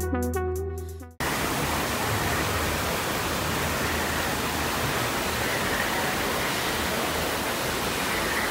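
Electronic music fading, cut off about a second in by the steady rush of water tumbling over rocks in a stream with small waterfalls.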